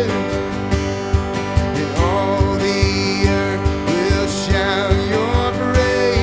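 Live worship band music: guitar over a steady drum beat, with a voice holding long sung notes.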